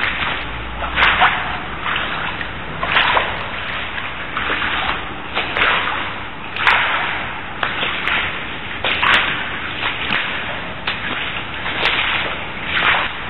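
Footsteps swishing through mud and shallow floodwater, one swish about every second, with a few small clicks between them.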